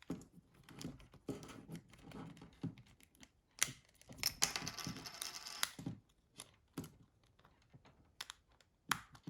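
Small plastic clicks and taps as a Nokia 6060 phone's housing and internal parts are handled and pried apart by hand, with a longer scraping stretch in the middle.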